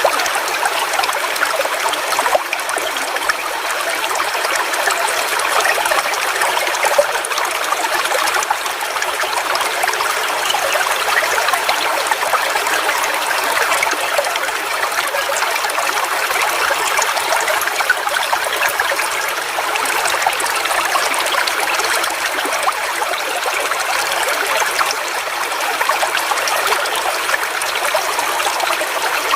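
Forest waterfall: steady splashing and rushing of falling water with no breaks or distinct events.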